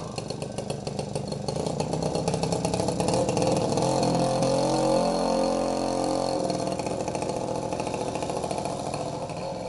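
KTM motorcycle engine running just after a cold start, its speed climbing slightly about three seconds in and then easing back to a steady run.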